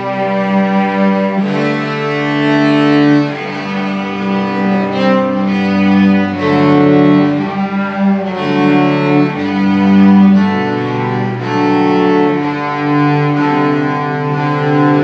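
Several cellos bowing together in harmony, an ensemble playing long held notes that change about every second or two.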